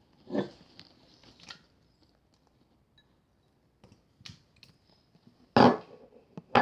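Slime being handled by hand: scattered small sticky clicks and taps, with one louder, longer noise about five and a half seconds in.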